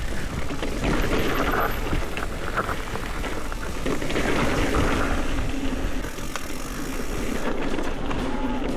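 Mountain bike riding down a dirt trail: tyres rumbling over the ground and the bike rattling and knocking over bumps.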